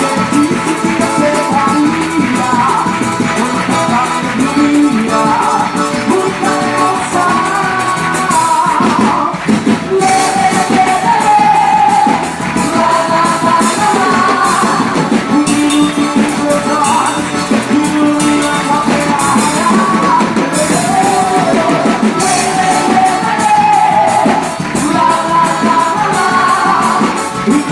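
Festive June-festival band music with a fast, steady shaker-and-tambourine beat under a melody line that may include singing.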